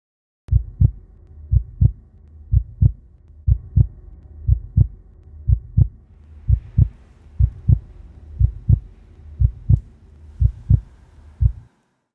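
Heartbeat sound effect: paired low thumps, lub-dub, about once a second over a low steady hum, starting suddenly about half a second in and cutting off shortly before the end.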